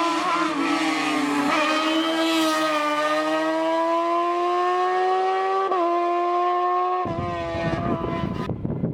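Race car engine at high revs accelerating uphill, its pitch climbing steadily with short dips at upshifts about one and a half and five and a half seconds in. About seven seconds in, it gives way abruptly to a rougher, noisier engine sound.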